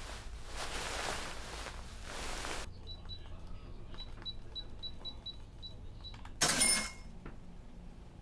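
Soft rustling of bedding, then a run of short, high electronic beeps, and about six and a half seconds in a loud cash-register "ka-ching" sound effect. A low steady hum runs underneath.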